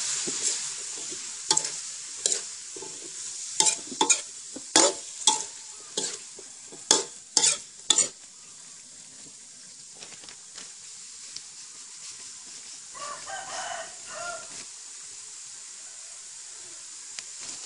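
Metal ladle clanking and scraping against a large aluminium wok as cauliflower and minced pork are stir-fried, over a steady sizzle of frying. About a dozen sharp clanks come in the first eight seconds, after which mostly the sizzle remains.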